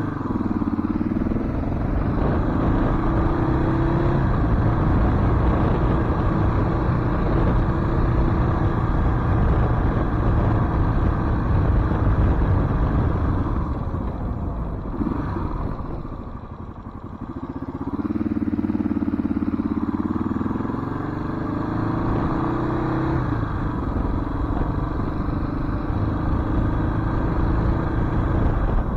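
1993 Suzuki DR650's single-cylinder four-stroke engine under way: pitch climbing in steps through the gears as it pulls away, then a steady cruise. About fifteen seconds in it eases off and quietens, then accelerates again through the gears and settles back to a steady cruise.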